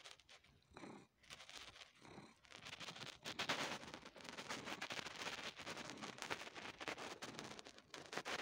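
Tabby cat purring in slow swells, then from about two seconds in making a rapid run of wet sucking clicks as it suckles on a bare forearm.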